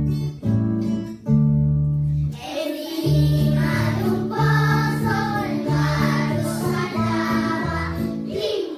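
Children's song: a backing track of held instrumental notes, joined about two and a half seconds in by a group of young children singing together in Spanish.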